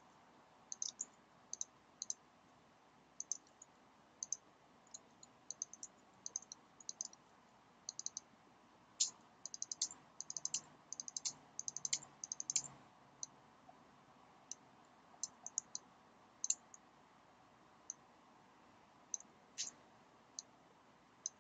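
Faint computer keyboard keystrokes and clicks, scattered singly and in small groups, with a busier run of quick keystrokes about halfway through.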